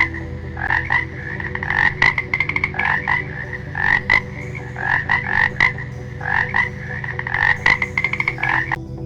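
Frog croaking: a long run of short calls, repeated unevenly several times a second, that stops shortly before the end.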